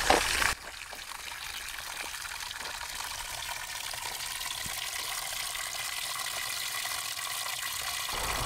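Water pouring from a PVC pipe elbow into a black plastic tub part-filled with muddy water, splashing steadily after a louder first half-second. This is the test flow coming out of a home-built greywater plant filter.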